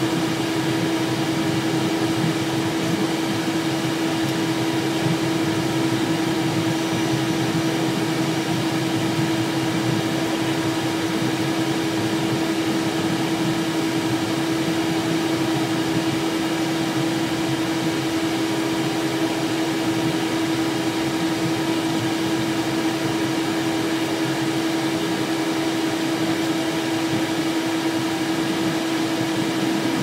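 Steady cockpit noise of a Cessna Citation Excel business jet as it taxis: an even drone of engines and air-conditioning with one constant tone running through it.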